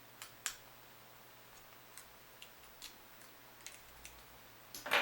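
Small plastic clicks and taps as a 3D-printed battery latch is worked onto a Sirius Stiletto SL100 receiver, then a louder snap near the end as the latch's hooks pop into their slots.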